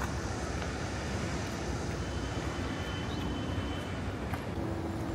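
Steady city street ambience: a constant low rumble of distant traffic, with faint thin tones coming and going in the second half.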